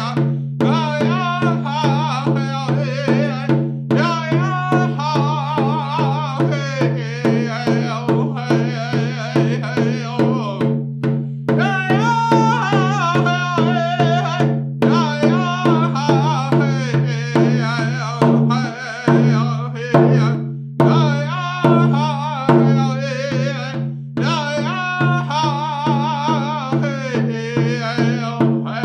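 A man singing a hand-drum song, keeping a steady beat on a round rawhide frame drum struck with a beater. His voice wavers in pitch and comes in phrases with short breaks, while the drum beat carries on underneath.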